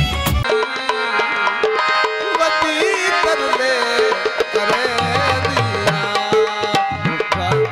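Harmonium playing a melody with tabla accompaniment, cutting in about half a second in after the end of a different recorded song. Deep bass drum strokes join about five seconds in.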